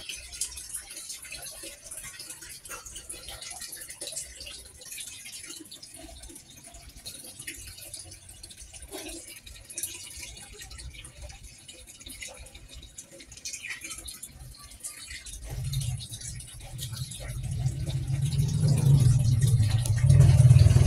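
Quiet background with a few faint clicks, then a low, steady rumble that swells up about fifteen seconds in and grows loud near the end.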